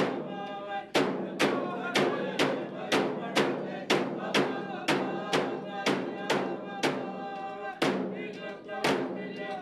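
Music with a steady beat of about two strikes a second over sustained pitched notes.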